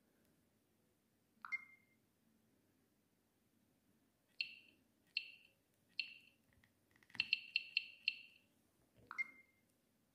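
Samsung SGH-U900 Soul mobile phone giving short electronic key-press beeps as its touch control pad is tapped through the menu. There are three beeps about a second apart, then a quick run of five, with a different blip about a second and a half in and again near the end.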